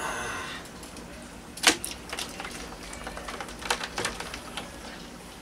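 Mangrove crabs' legs and claws clicking and scraping against a hard plastic tub in irregular taps, the loudest about a second and a half in, after a short noisy rush at the very start.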